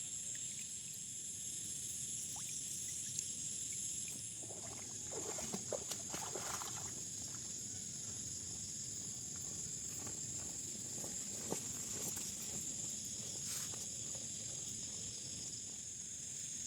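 A steady, high-pitched chorus of night insects, with short bouts of water splashing and sloshing in shallow floodwater about a third of the way in and again near two-thirds.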